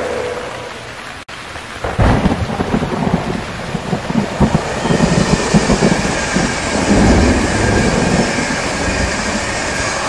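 Heavy rain with a roll of thunder that breaks in suddenly about two seconds in and rumbles on irregularly. The rain hiss grows heavier from about halfway.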